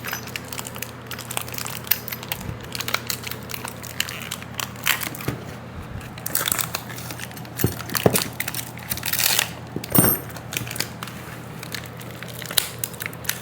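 Plastic hardware packaging crinkling and rustling as the bolts are handled and counted out, with scattered small clicks.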